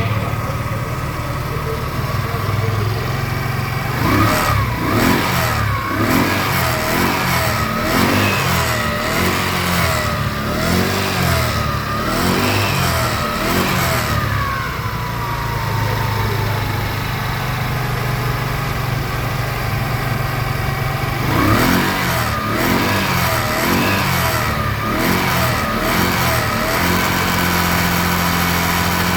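Scooter engine being blipped over and over, short throttle revs about once a second with idling in between. A warbling whine rises and falls with each rev. This is the strange noise under acceleration that the owner suspects comes from the automatic drive.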